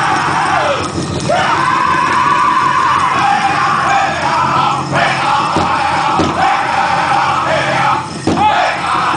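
Powwow drum group singing a chicken dance contest song: high-pitched, loud men's voices over the big drum, with the voices sliding in pitch between phrases.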